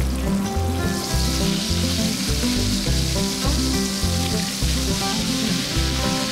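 Flour-dredged chicken breast fillets sizzling as they fry in hot oil in a pan, the sizzle growing stronger about a second in. Background music with a steady beat plays underneath.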